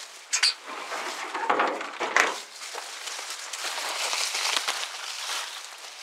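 Footsteps crunching and rustling through dry brush and leaves, with a few sharp knocks in the first two seconds.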